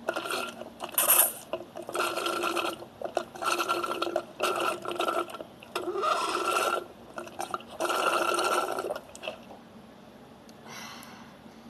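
Loud slurping of the last of a drink, in about seven long noisy pulls with short breaks between, then a faint one near the end.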